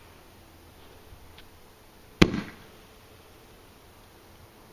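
Standard Fireworks Liberty small roman candle firing a single star with a sharp pop about two seconds in, followed by a brief tail. It is one shot in a sequence spaced about three seconds apart.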